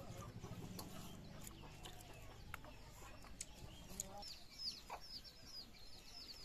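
Faint calls of domestic chickens, with a rapid run of high, falling chirps from about four seconds in. Light clicks of fingers on a steel plate.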